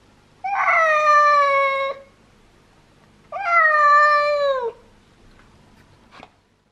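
A cat giving two long, drawn-out meows about a second apart, each lasting about a second and a half and dropping in pitch at its end.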